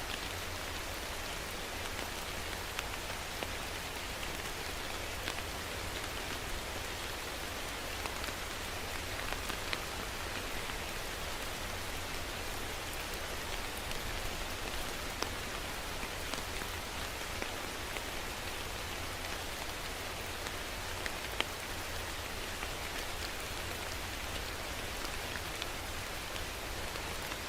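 Steady rain falling on a surface, an even hiss with scattered sharper drop ticks now and then.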